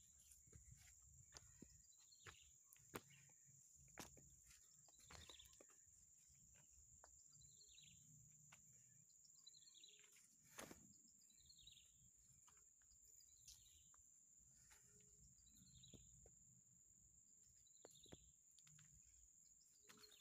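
Faint forest ambience: a bird repeating a short falling call about once a second over a steady high whine, with a few faint ticks.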